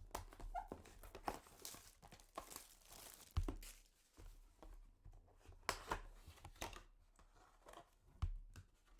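A box of trading cards being opened by hand: a string of short tearing and crinkling sounds as the packaging is ripped and handled.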